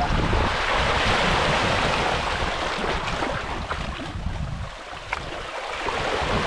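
Wind buffeting the microphone, with the wash of sea waves underneath.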